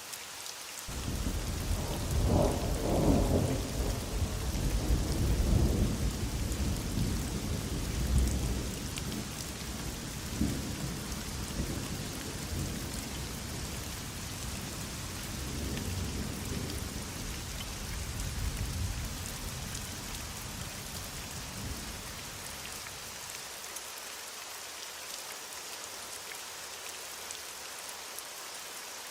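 Heavy rain falling steadily, with a long roll of thunder that starts about a second in, is loudest over the next several seconds, and rumbles away to nothing by about three quarters of the way through.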